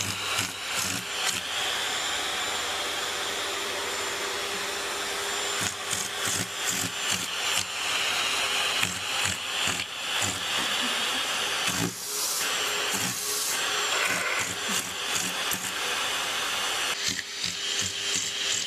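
Vacuum cleaner running steadily with its hose nozzle held against a cat, with irregular short knocks and rustles over the hiss. The hiss breaks off and changes briefly about twelve seconds in.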